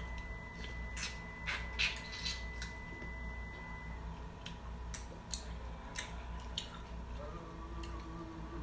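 Sparse wet clicks and smacks of people biting into and chewing plum chow, green plums in a peppery sauce. A faint steady hum runs underneath.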